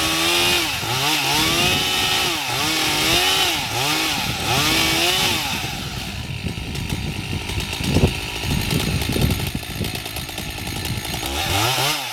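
Chainsaw engine revving up and down in quick swells, about once a second, while cutting. It then settles lower and rougher, with one sharp crack about eight seconds in, and the pitch climbs again near the end.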